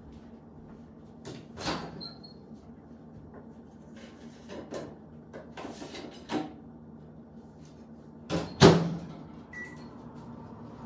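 Food being reheated in a microwave: scattered clicks and knocks of doors and dishes, two short electronic beeps from the keypad, and one loud knock near the end.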